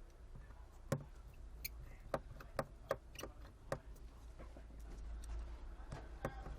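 Scattered small, sharp clicks and taps of repair tools against the parts of an opened iPhone 5C, about ten at irregular spacing, most of them in the first four seconds.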